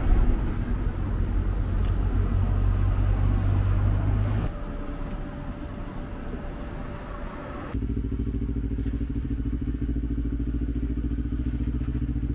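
Steady low mechanical hum with a few held tones. It drops and changes character abruptly twice, about four and a half and nearly eight seconds in.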